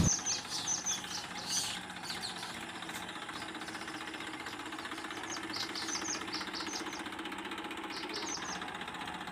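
Small birds chirping in quick repeated calls over a steady low hum, with a few louder bumps in the first couple of seconds.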